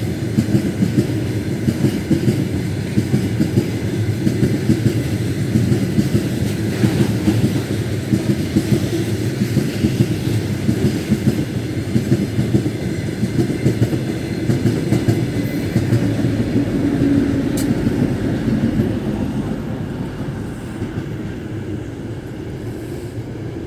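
A passing train with its wheels clattering over rail joints in a fast, uneven rhythm over a low rumble, growing quieter over the last few seconds as it moves away.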